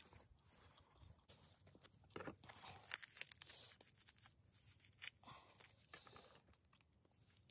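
Faint tearing and rustling as a piece of naan flatbread is torn off by hand, loudest in a short stretch just past the middle.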